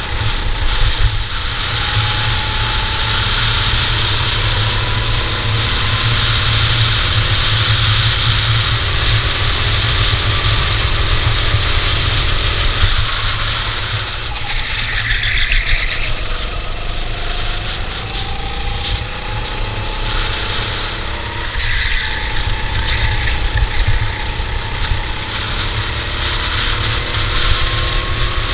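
Racing kart engine running at speed on a lap. Its note climbs steadily and drops away about halfway through and again about three quarters of the way through, as it slows for corners, over a heavy low rumble.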